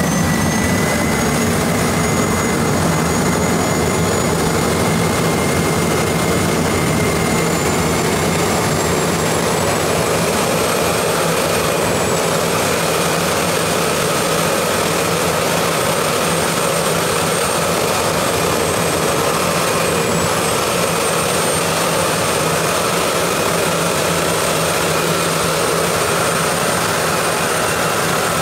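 Jet engine of a go-kart running on a test bench with its afterburner lit, fitted with a new flame holder design. It makes a loud, steady rushing noise with a thin, high turbine whine over it. The whine climbs slowly in pitch and dips briefly twice.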